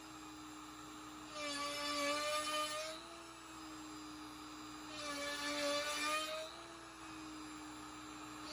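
The router spindle on a LowRider v4 DIY CNC runs with a steady whine. Twice, for about a second and a half each time, it grows louder and rougher as the 7/8" box cove bit cuts a half-round divot into red oak–veneered hardwood plywood.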